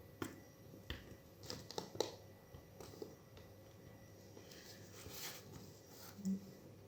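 Faint, scattered small clicks and taps of tools against small phone parts as the front-facing speaker and LED indicator are worked loose during a smartphone teardown.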